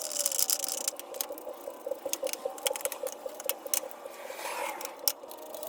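Ratchet wrench clicking in a quick, even run as the 17 mm transmission bolts are backed out, amid scattered metallic clicks and knocks of the tool on the bolts.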